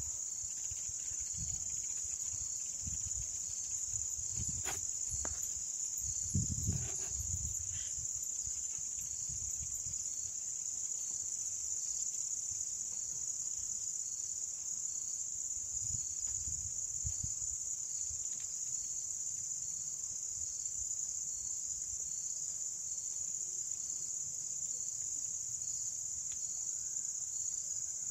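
Steady, high-pitched chorus of insects running throughout, with a few brief low rumbles on the microphone about five to seven seconds in and again around sixteen seconds.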